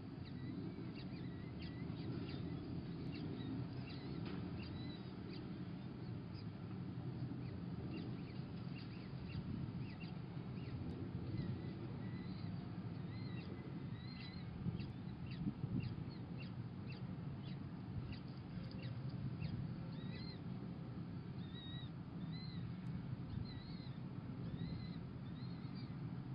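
Faint, short, high cheeps repeated in runs, the food-begging calls of peregrine falcon chicks being fed, over a steady low rumble.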